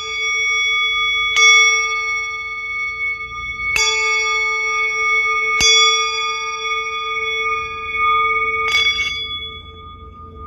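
A metal bell struck three times, about two seconds apart, each strike leaving long, steady, overlapping ringing tones. A brief rattle comes near the end, and the ringing then fades.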